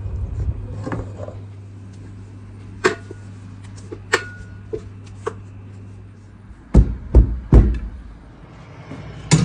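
A spatula clinking and knocking against a metal mixing bowl and glass baking dish as cake batter is scraped out and poured, with four sharp clicks spread over the first half. About seven seconds in come three heavy low thumps in quick succession, and another near the end. A low steady hum underneath stops just before the thumps.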